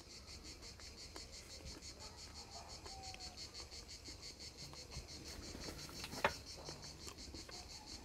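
Insects chirping faintly in a fast, even pulse. One short click about six seconds in.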